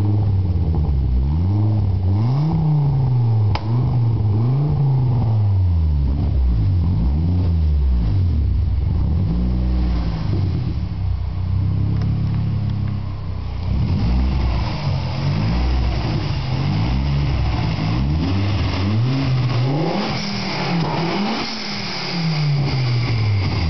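Fiat Marea's turbocharged 2.0 20-valve five-cylinder engine revved over and over in short blips, its pitch rising and falling each time. From about halfway through, the revs carry more hiss.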